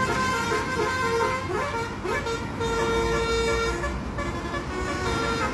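A bus's Basuri telolet horn: a multi-trumpet air horn playing a tune of short notes, with two quick upward swoops, then one long held note in the middle. The bus engine rumbles low underneath.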